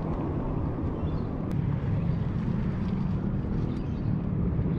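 Steady low rumble of riding noise from a handlebar-mounted action camera on a moving mountain bike: wind on the microphone and the tyres rolling over dirt and asphalt.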